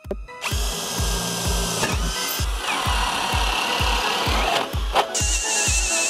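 HPT 20V brushless cordless drill boring through pine with a spade bit, the motor whining steadily under load with wood chips scraping. It switches to a wood auger bit about five seconds in. Throughout there is a music track with low thumps about four times a second.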